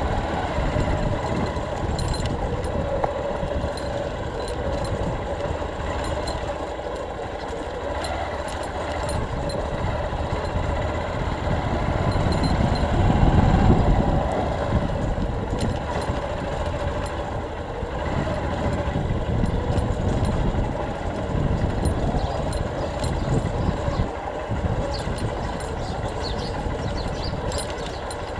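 Motorcycle engine running while riding slowly over a rough dirt road, with light rattles. It swells for a few seconds about halfway through.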